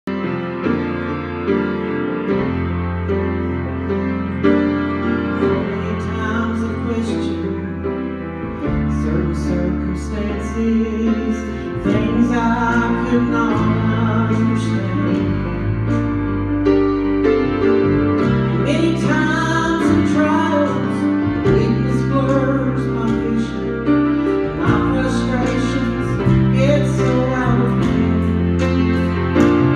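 A woman singing a gospel song through a microphone over piano-and-bass accompaniment, the voice entering in phrases after a short instrumental opening.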